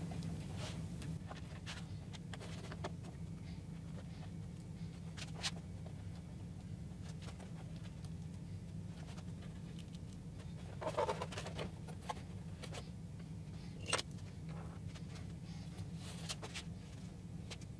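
Quiet handling on a workbench: a cardboard template with its mounting studs and washers and a rear spoiler being moved and set in place, with a few light clicks and knocks, the sharpest about eleven and fourteen seconds in, over a steady low hum.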